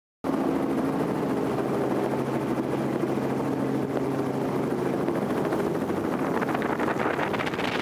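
Small helicopter's engine and rotor running steadily, heard from on board as it flies low. The sound cuts in abruptly just after the start.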